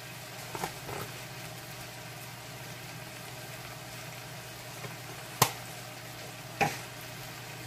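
A pan of food sizzling steadily on the stove, with two sharp clicks or knocks about a second apart, just past halfway through.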